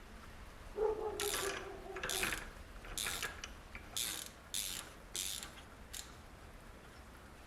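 Miniature Zippo lighter being worked by hand. A click with a brief ringing tone comes about a second in, then the flint wheel is struck about six times, each strike a short rasping scrape.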